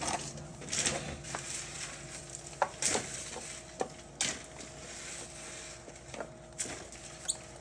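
Scattered clicks and light knocks among scraping and rustling, as of tools or materials being handled, over a faint steady hum.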